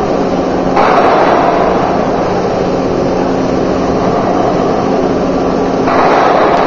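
Machinery of an NPK fertilizer production line running: a loud, steady mechanical din with a low hum beneath it. The noise turns brighter and louder about a second in and again near the end.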